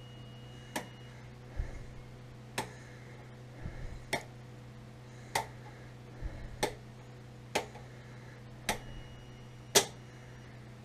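Circuit toggle switches on a manual generator transfer switch being snapped one by one from OFF to GENERATOR: about nine sharp clicks roughly a second apart, the one near the end the loudest, over a low steady hum.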